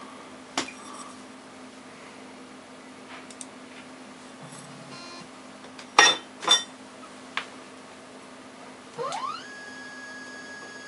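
Heidelberg Saphir HiRes film scanner working through a scan over a steady low hum. There is a click soon after its lid is shut and a few sharp clacks around the middle. About nine seconds in, its tray drive motor whines up in pitch and holds a steady high whine.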